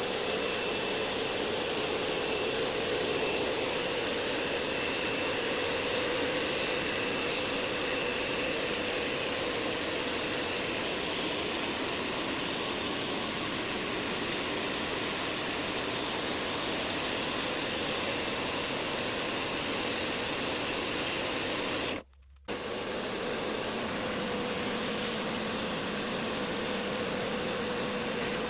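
Pressure washer spraying a house wall, a steady hiss of water jet with the pump motor running underneath. The sound cuts out sharply for about half a second roughly three quarters of the way through, then carries on.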